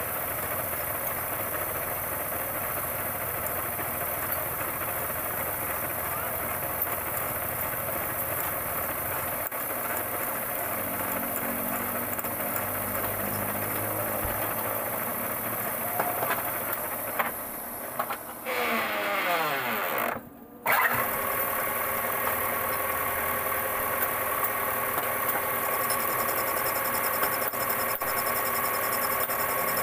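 Metal lathe running with a motorcycle wheel chucked, its cutting tool boring out the aluminium-welded, oversized bearing seat of a Yamaha YTX125 wheel hub: a steady machine drone. It dips and breaks off briefly about two-thirds of the way through.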